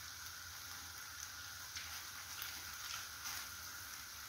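Omena (dagaa) cooking in coconut cream in a pan on the stove, sizzling faintly as a steady hiss, with a few light clicks.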